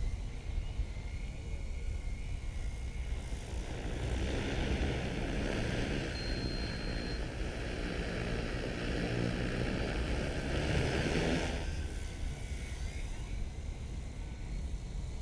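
Multirotor drone propellers and motors whirring in flight over a steady low wind rumble, swelling louder for several seconds in the middle and then dropping back.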